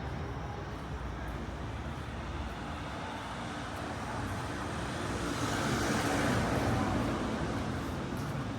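Street traffic noise with a vehicle passing close by: a steady hum that swells about five seconds in, peaks and fades again near the end.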